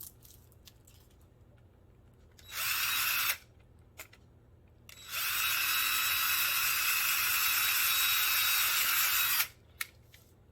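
Electric drill boring a hole in PVC pipe for a screw eye: a short run of under a second, then a steady run of about four seconds.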